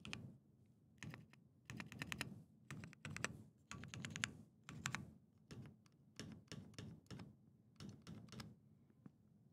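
Typing on a Keychron Q3 Pro mechanical keyboard: irregular runs of key clicks, the last ones near the end.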